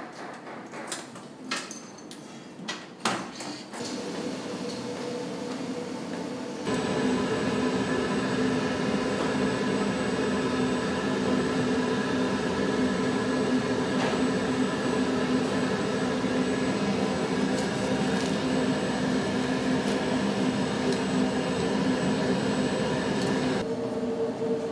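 A few clicks and knocks, then a steady mechanical hum with several held tones that starts suddenly and cuts off suddenly near the end.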